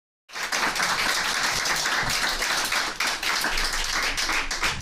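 Audience applause, many hands clapping at once, cutting in suddenly out of silence just after the start.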